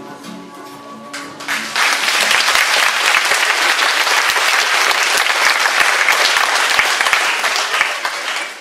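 Music fades out during the first second or so, then an audience claps and applauds loudly for about seven seconds, tailing off near the end.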